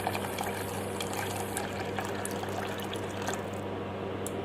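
Water being poured from a glass jug into a pressure cooker of boiling tamarind and mint liquid, over a steady low hum.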